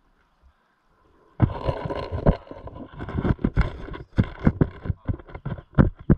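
Footsteps on rough ground with gear rustling and knocking, about four irregular thuds a second. They start after a second or so of near quiet.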